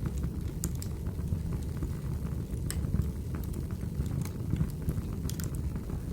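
Wood fire burning in a fireplace: a steady low rush of flame with scattered sharp snaps and pops from the burning logs.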